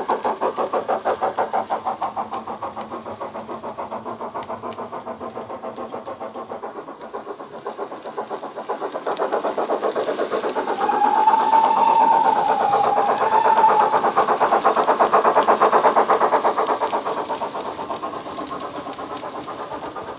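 Recorded steam sound of a BR Standard Class 9F played by a Loksound 5 DCC decoder through a megabass speaker in a Bachmann model locomotive: quick, even exhaust chuffs, about three a second, growing louder as the model passes. About 11 seconds in, a whistle sounds for roughly two and a half seconds.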